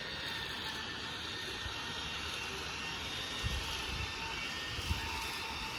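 Steady rushing of wind on the microphone, with a couple of low buffets in the second half.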